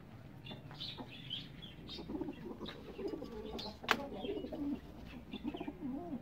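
Pigeons cooing from about two seconds in, over short high chirps of other birds, with a single sharp knock about four seconds in.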